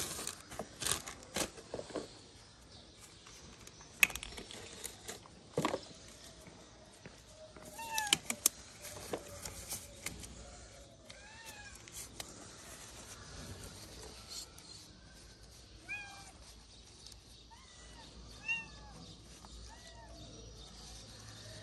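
A kitten mewing: short, high mews, repeated every second or two through the second half. Earlier, plastic wrapping rustles and a few sharp clicks sound as first-aid supplies are unpacked.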